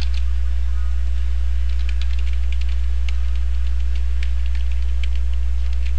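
Computer keyboard typing in short bursts of light key clicks, over a steady low hum.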